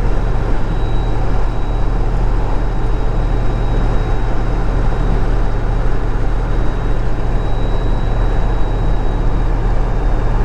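7.3L Power Stroke turbo-diesel engine pulling the truck along at a steady cruise, heard from inside the cab as a steady low drone. A faint, thin, high turbo whistle holds over the engine and fades out near the end.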